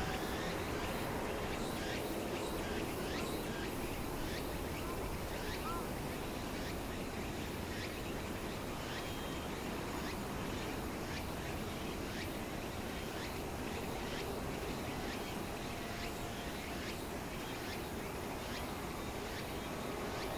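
Outdoor ambience: steady wind rumble on the microphone, with many short, high chirps scattered throughout.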